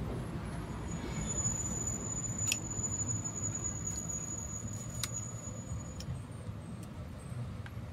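Pruning shears snipping through old succulent roots: a few sharp clicks, over a steady low rumble. A thin, steady high-pitched tone sounds from about a second in to about six seconds in.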